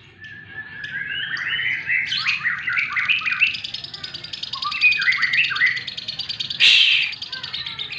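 A murai songbird singing a long run of varied, quickly changing whistled phrases, and a short loud hiss about two-thirds of the way in.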